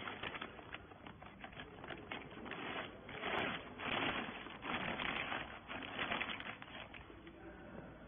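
Clear plastic bag crinkling and rustling with many small crackles as it is handled and a compressed bale in it is pulled out of the baler's discharge. It is loudest in two stretches about three to four and a half to six and a half seconds in.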